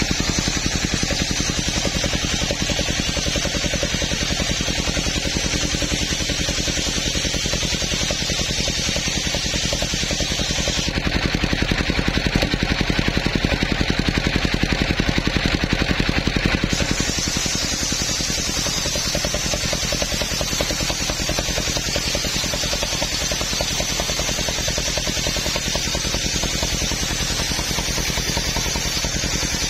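Table circular saw running and ripping coconut-wood planks: a steady, loud mechanical drone with a fast, even beat underneath and a hiss on top. For several seconds in the middle the hiss fades and the sound grows a little louder.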